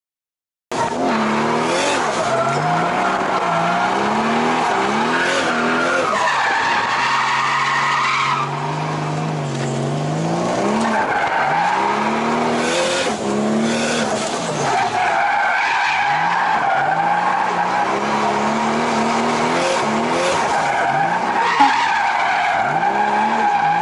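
Nissan Cefiro A31 drift car heard from inside the cabin: its engine revs rise and fall over and over as it slides, with tyres squealing. The sound cuts in under a second in, after a moment of silence.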